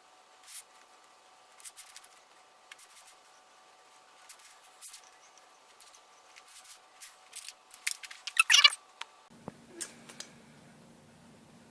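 Small, scattered clicks and snips of freshly painted toy parts being cut off, with a quick burst of louder, rapid clicks a little over eight seconds in.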